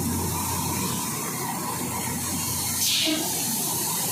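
Indian Railways rail grinding machine rolling slowly past, a steady rumble with a constant low hum. A short hiss comes about three seconds in.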